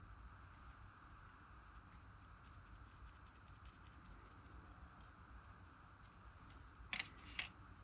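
Near silence: faint room hiss, with two brief soft sounds about half a second apart near the end.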